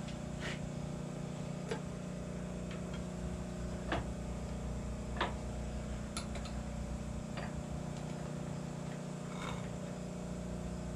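A steady hum runs throughout, with scattered light metal clicks and taps, about seven in all, as a heavy steel spring-mount plate is handled and set in place against the truck frame.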